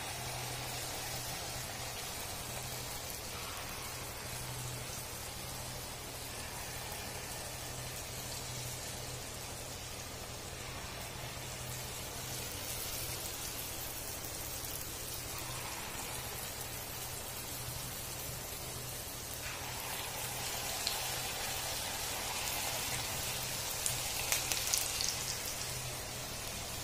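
Babru (sweet wheat-flour batter dumplings) deep-frying in hot oil in a kadhai: a steady sizzle. It grows louder in the last few seconds, with a few crackles, as more dumplings bubble in the oil.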